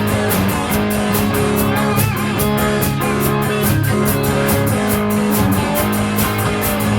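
Electric guitar, a Gibson Les Paul through Marshall and Fender valve amps, playing a rock piece with drums keeping a steady beat.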